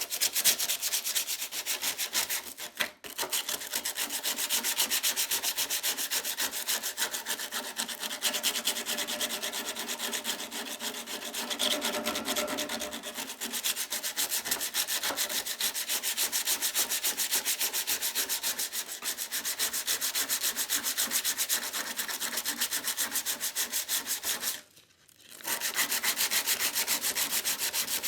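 Sandpaper being rubbed by hand over a sheet of metal in fast, even back-and-forth strokes, a continuous rhythmic scratching. It breaks off briefly about three seconds in, and again for about a second near the end before resuming.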